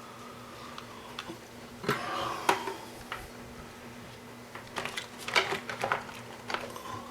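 Scattered light clicks, taps and rustles from handling stranded wire and soldering tools while tinning the wire, over a steady low electrical hum.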